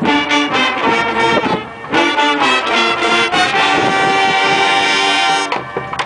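High school marching band's brass section and drumline playing short punchy chords, then a long held chord that cuts off about five and a half seconds in.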